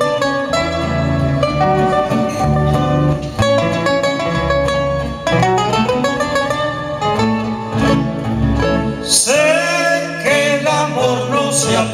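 Two acoustic guitars play an instrumental interlude between verses of a Cuyo tonada. About nine seconds in, a man's voice comes in singing over them.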